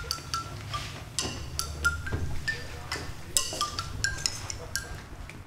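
Small hand-held glockenspiel struck with a beater, plinking short ringing notes at different pitches, about three or four a second, in no steady tune.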